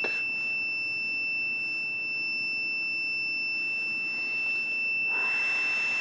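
Steady continuous beep of a multimeter's continuity tester: the smoke detector's normally open alarm relay has closed on detecting smoke. Near the end a rush of breath is blown across the ionization chamber to clear the smoke.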